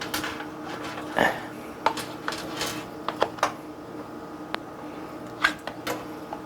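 Metal utensil clinking and scraping against a bowl and dish while soft-serve ice cream is scooped out: a scatter of sharp clinks with a few longer scrapes.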